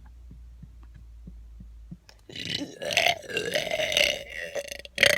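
A person's deliberate, forced burp: one long, loud, rasping belch starting about two seconds in and lasting nearly three seconds. A second burp breaks out just before the end.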